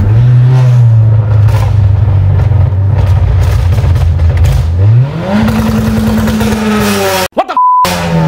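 Honda Accord's 1.5-litre turbocharged four-cylinder, with its intercooler resonator deleted, running steadily and then revving up about five seconds in, its pitch climbing and holding higher. Near the end the sound cuts out briefly around a short beep, and then the engine note falls.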